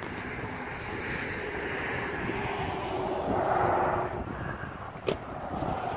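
Rushing wind and road noise as from a moving car, building to its loudest a little past halfway. A single sharp click comes about five seconds in.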